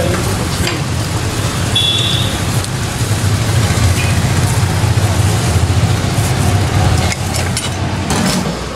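Steady low rumble of road traffic, with a brief high beep about two seconds in.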